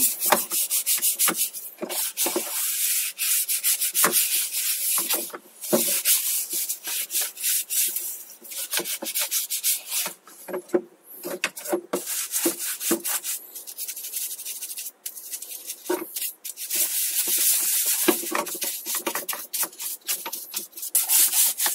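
Brush scrubbing a bicycle chainring in quick back-and-forth strokes, with a few short pauses, to clean grease off the drivetrain.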